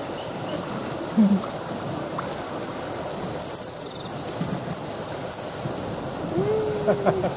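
Steady high buzzing of insects in the grass, over a rough, even rustling noise. A short grunt comes about a second in, and a drawn-out vocal 'ooh' near the end.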